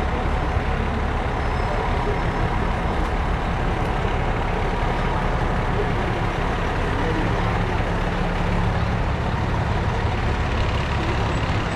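Heavy fire rescue truck's engine running with a steady low rumble as the truck rolls slowly past at parade pace.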